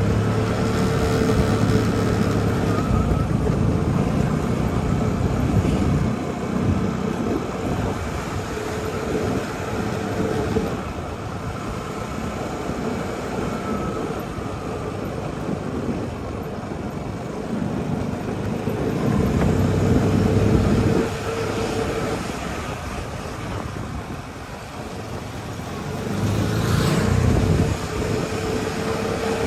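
Motorcycle engine running while riding, its note rising and easing with the throttle, with wind rushing over the microphone.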